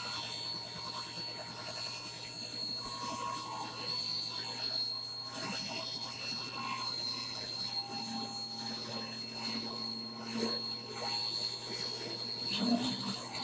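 A 1970s Craftsman contractor table saw running with its 80-tooth plywood blade ripping a hardwood board lengthwise, giving a steady high whine over a motor hum. The blade is the wrong type for a rip cut, and the low-powered saw struggles to keep up with the dense wood.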